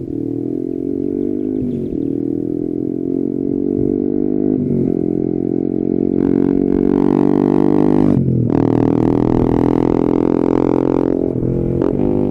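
Yamaha XSR 155's single-cylinder engine running loud through an SC Project exhaust with no silencer, accelerating through the gears. The pitch climbs steadily, then drops at each upshift, four times.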